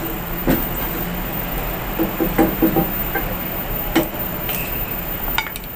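A wooden spatula knocking and scraping against a metal wok of heating oil: a sharp tap about half a second in, a cluster of taps between two and three seconds, another at four, and a couple more near the end. A steady rushing hum runs underneath.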